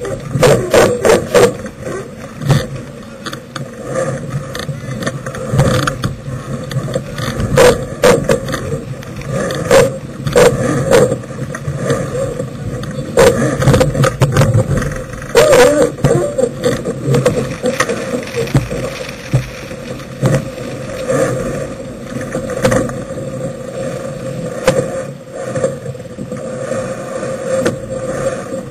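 Sailboat sheet winches clicking and clattering as the crew grind and trim, with irregular sharp knocks, busiest in the first half, over steady wind and water noise.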